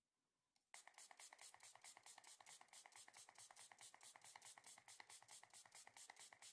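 Ultrasonic dental scaler starts about a second in and runs against a dog's teeth, scaling off tartar, with a faint, rapidly pulsing buzz of about six pulses a second.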